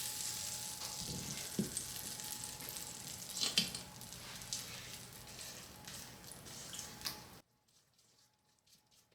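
Hot melted butter sizzling as it meets the cornbread batter, the hiss slowly fading, with a few light knocks. The sound cuts off suddenly near the end.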